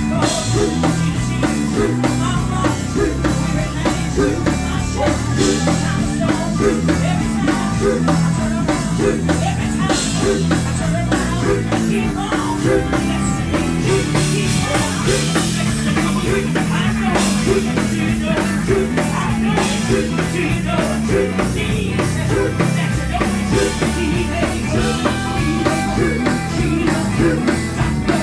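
Live gospel band playing loud through stage speakers, with drums and guitar and some singing.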